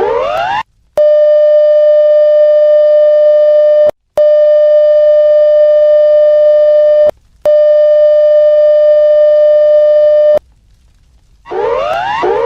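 Electronic emergency alert alarm. A few rapid rising sweeps are followed by three long steady beeps, each about three seconds, with short gaps between them. After a brief pause, the rapid repeating upward sweeps start again near the end.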